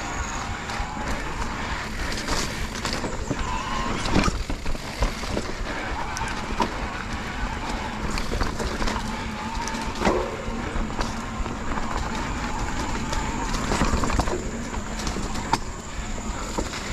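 Mountain bike riding a dirt trail: a steady rush of wind and tyre noise, broken by frequent knocks and rattles from the bike going over bumps.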